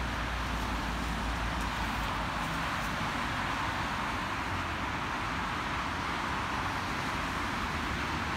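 Road traffic: cars passing on the road, a steady tyre-and-engine hiss with a heavier low rumble in the first couple of seconds.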